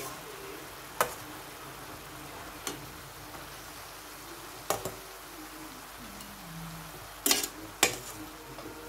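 Metal spoon clinking and scraping against a large metal pan while stirring chicken drumsticks and mushrooms, with a faint sizzle of frying underneath. About six sharp clinks come a second or two apart, and the loudest two fall close together near the end.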